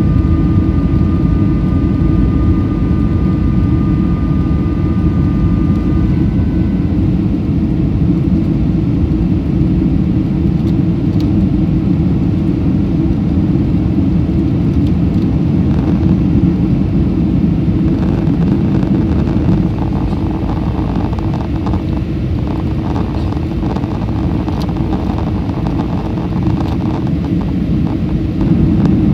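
Cabin noise aboard a Boeing 747-400 with Pratt & Whitney PW4056 engines: a loud, steady low rumble of engines and airflow. A few steady higher tones ride over it and stop about six seconds in.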